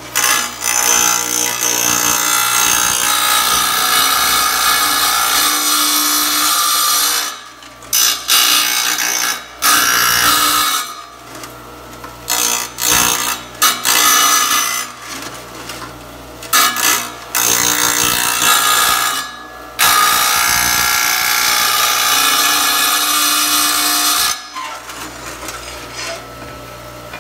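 Wet tile saw's diamond blade grinding into a tile to cut a curved notch, in long loud stretches broken by short pauses as the tile is eased on and off the blade. Near the end the tile comes off and the saw runs on more quietly with the blade spinning free.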